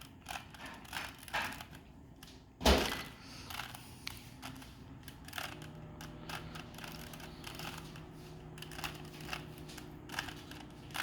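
Plastic Rubik's cube layers being turned, a run of quick irregular clicks and clacks, with one much louder knock about three seconds in.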